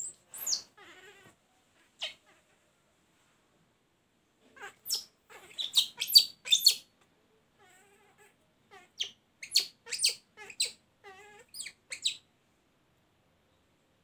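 Baby macaque calling with short, high-pitched squeals and whimpers that bend in pitch, in two bouts: about five seconds in and again about nine seconds in.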